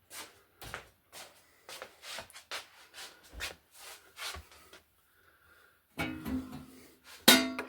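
Footsteps at a steady walking pace, then near the end a sharp knock followed by a ringing, twangy tone.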